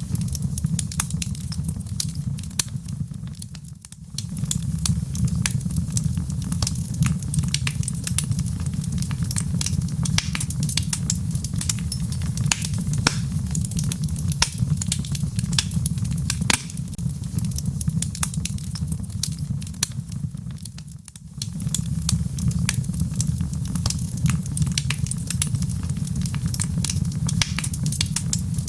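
Log fire burning in a fireplace: a steady low rumble of flames with frequent small crackles and pops from the wood. The rumble briefly fades out about four seconds in and again some seventeen seconds later.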